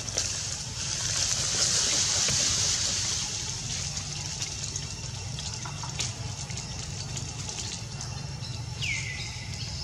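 Steady high hiss of outdoor background noise over a low rumble, louder for about two seconds after the start. A faint click comes about six seconds in, and a short falling call near the end.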